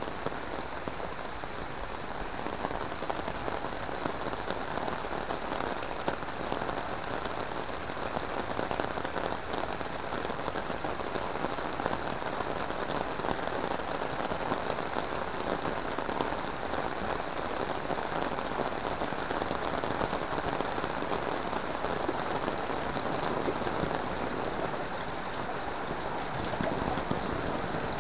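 Heavy rain falling steadily on wet paving, puddles and roofs: a dense, even patter of drops.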